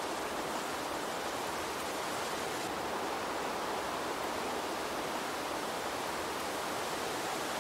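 Steady, even rushing noise at a constant level, with no distinct events.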